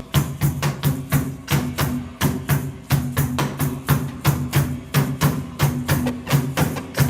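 Band music led by hand percussion: sharp strikes about three a second over a repeating bass line, starting abruptly.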